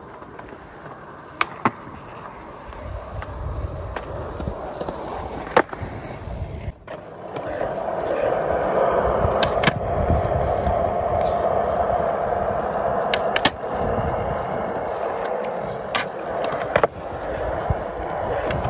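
Skateboard wheels rolling over smooth concrete: a steady rolling rumble that grows louder about seven seconds in, broken by several sharp clacks.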